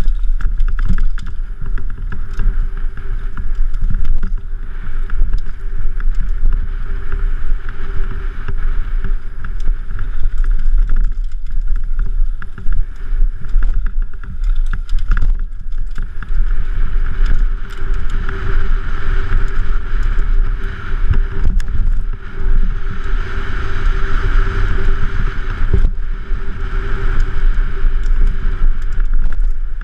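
Mountain bike ridden fast down a rough dirt forest trail, heard from a helmet-mounted camera: loud continuous rumble of wind buffeting and tyres and frame rattling over the ground, with a steady hum and a hiss that swells and fades.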